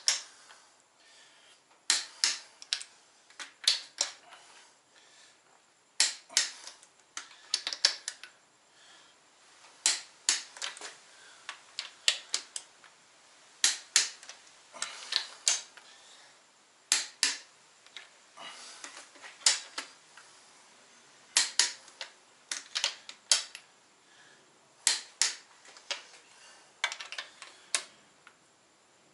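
Long torque wrench on the ARP head stud nuts of an RB25DET cylinder head, its ratchet clicking in short runs with pauses between, as the studs are gone over again at the 90 stage of the torque sequence.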